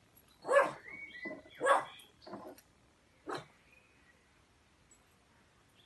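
Pug barking: two loud barks about a second apart, then a few softer ones, the last about three seconds in.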